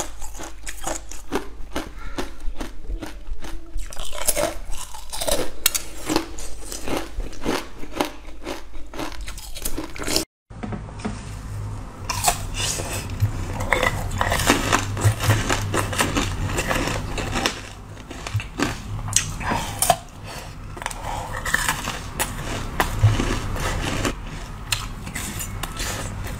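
Hard frozen ice treats bitten and crunched close to the microphone, a rapid series of crisp, cracking bites with chewing between them. The sound drops out briefly about ten seconds in. After that, a low steady hum runs under the crunching.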